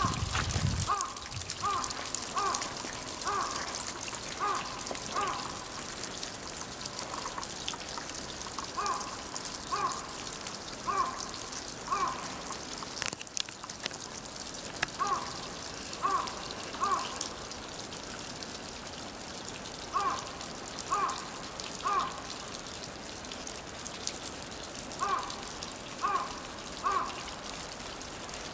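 Snowmelt dripping and trickling from the eaves of a snow-laden thatched roof: a steady fine patter of drops, with short pitched notes that come in groups of two or three. A brief low rumble sounds at the very start.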